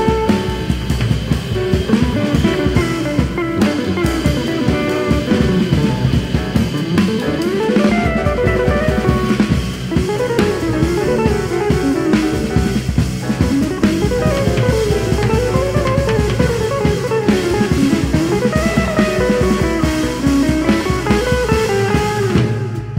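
Jazz quartet playing live: a hollow-body electric guitar plays a winding single-note line that rises and falls, over drum kit, upright bass and piano.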